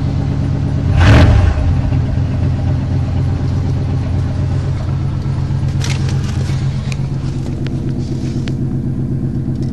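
1995 Chevrolet Silverado pickup idling steadily through its exhaust, with a short loud burst about a second in.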